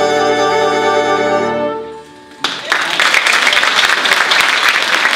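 Jazz big band, flugelhorn soloist included, holding its final chord, which dies away a little under two seconds in. About half a second later the audience breaks into applause.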